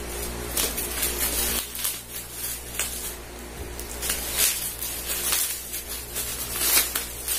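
Plastic bubble-wrap packaging crinkling and crackling in short, irregular bursts as it is snipped with scissors and pulled apart by hand.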